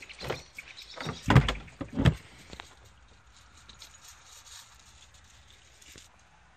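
Dogs scrambling and playing on gravel. Two loud thumps come about a second and a half and two seconds in, then paws crunch faintly on the gravel until near the end.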